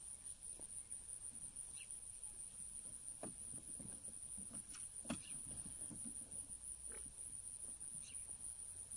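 A steady high-pitched insect trill, with a few light knocks as plastic septic infiltrator chambers and corrugated pipe are handled in the trench; the sharpest knock comes about five seconds in.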